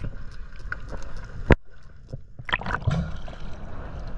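Water splashing and sloshing on a handheld camera's microphone as it dips under and breaks back through the surface. It goes muffled for a moment while under water, and there is one sharp knock about a second and a half in.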